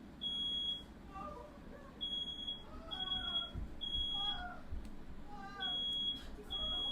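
Smoke alarm sounding: a single high-pitched beep, about half a second long, repeated in groups of three with a pause between groups (the temporal-three evacuation pattern), set off by smoke from a firework fire indoors.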